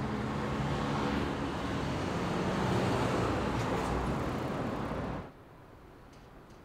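Road traffic: passing motor vehicles' engines and tyre noise. It cuts off suddenly about five seconds in to a faint, steady room hiss.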